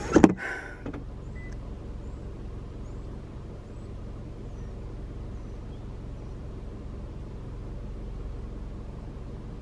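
Seatbelt-buckle and car-door clicks and a knock in the first second, then a steady low hum inside the parked car's cabin from the car's engine left idling.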